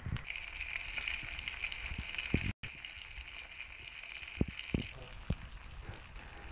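Chapli kebab patties of minced lamb sizzling in shallow oil in a frying pan, a steady frying hiss with scattered pops and crackles. The sound cuts out for an instant partway through.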